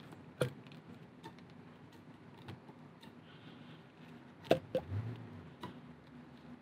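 A few faint clicks and light taps as a plastic fuel tank inlet check valve is turned by hand in the tank's inlet opening, over a faint steady low hum.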